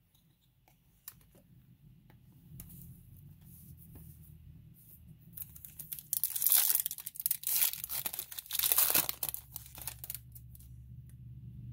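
Foil wrapper of a Topps Chrome trading-card pack being torn open and crinkled: a few faint clicks at first, then loud tearing and crinkling from about halfway through, lasting several seconds.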